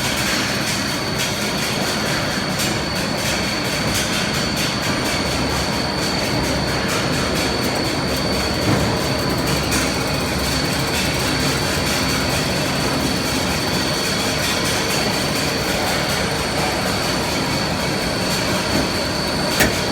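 Six-block pulley wire drawing machine running: a steady mechanical rush with a constant high whine, broken by a sharp click about halfway through and another near the end.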